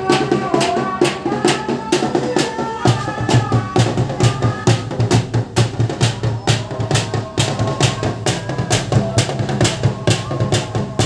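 Drums beaten in a steady, fast rhythm of about three strokes a second: takbiran drumming from a procession truck. Voices chant over the drumming for the first three seconds, and a low drone joins about three seconds in.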